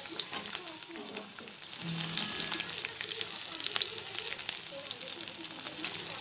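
Chopped garlic and slit green chillies sizzling in hot mustard oil in a kadai: a steady hiss with many small crackling pops, stirred with a spatula.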